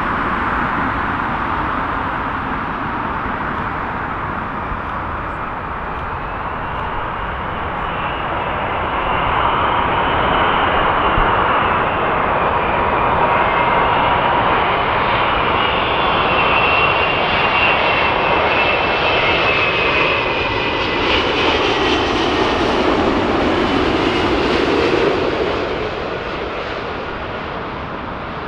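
Wide-body jet airliner on final approach passing close, its engines giving a whine with whistling tones that waver in pitch. The sound grows louder about eight seconds in and falls away near the end.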